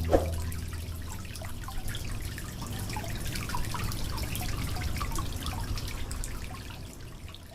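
Water trickling and splashing in many small drips from a miniature tabletop waterfall, fading out near the end.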